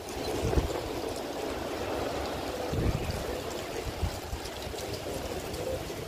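Heavy rain falling steadily in a squall, a dense even hiss, with a few low rumbles of wind buffeting the microphone.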